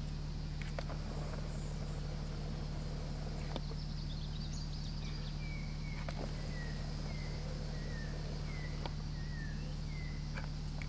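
A bird gives about ten short falling chirps, roughly two a second, from about five seconds in to near the end, over a steady low hum; a few faint clicks are scattered through.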